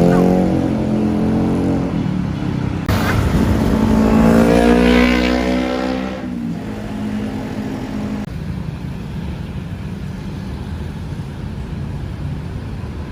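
Busy city road traffic: engines of passing vehicles, with one vehicle accelerating past, loudest around four to five seconds in, then a steadier wash of traffic noise.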